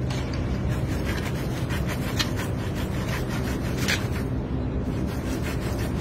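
Irregular rubbing and scraping as hands work a black plastic pipe stuck over a kitten's head, over a steady low hum.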